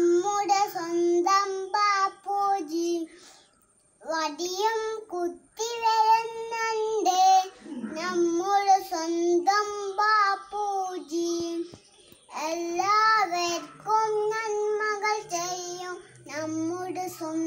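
A young child singing a song alone, without accompaniment, in long held notes, with a short pause about three and a half seconds in.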